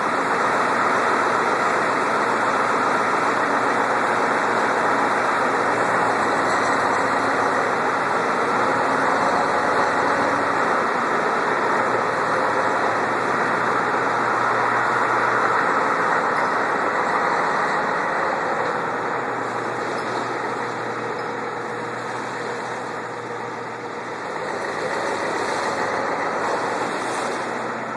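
1994 Ford F-250's freshly rebuilt 7.3 IDI turbo diesel V8 running as the truck drives off. It is loud and steady at first, fades about two-thirds of the way through, then swells again briefly near the end.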